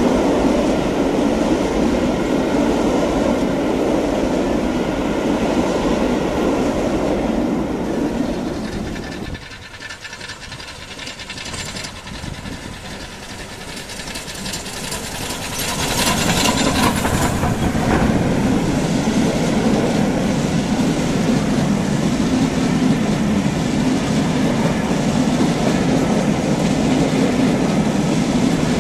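A passing heritage train's coaches rolling by at close range. About nine seconds in the sound cuts away to a quieter approach that builds as a steam locomotive nears and passes, followed by the steady noise and clatter of its coaches' wheels on the rails.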